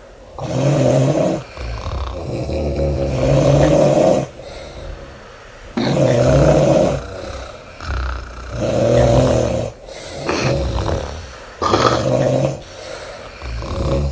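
A woman snoring loudly through an open mouth: a deep, buzzing snore on each breath, about one every two seconds, with quieter breathing between.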